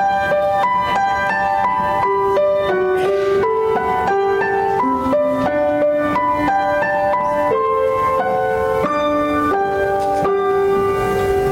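Piano playing a hymn-like passage of struck notes and chords, with no voices over it.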